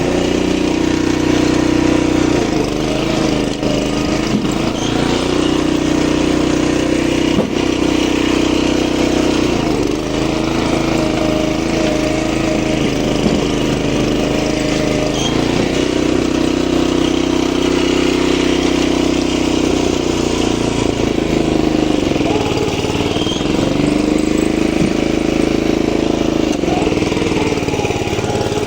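Small engine of a motorised oil palm fruit-hauling machine running steadily, its speed dipping and rising several times as it works.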